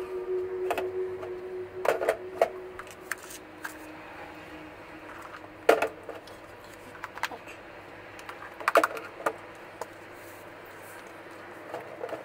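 Kitchen handling sounds: scattered clicks and light knocks of utensils and seasoning containers as sugar and salt are added to a stainless-steel mixing bowl, with a sharper knock about six seconds in and a few more near nine seconds. A steady low tone dies away in the first second and a half.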